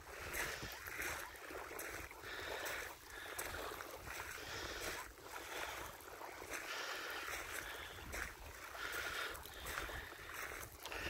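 Small wavelets lapping at the shallow edge of a lake, coming and going in uneven splashy swells about once a second, with wind rumbling on the microphone.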